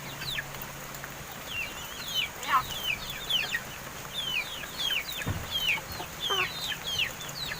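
Birds chirping: a steady run of short, falling chirps, about two a second, over a faint low hum.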